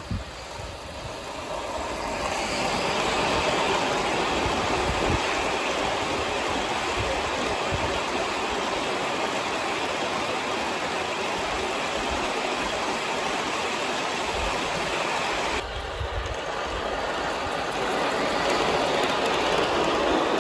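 Garden-scale model Union Pacific Challenger train running on an outdoor layout, its wheels rolling steadily over the rails. It grows louder over the first couple of seconds as it comes closer, and is loud again near the end as the yellow cars pass close by.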